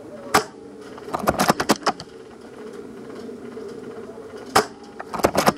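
Airsoft gunfire: a single sharp shot, then a quick string of about six shots, then another single shot and another rapid string near the end, over a steady low drone.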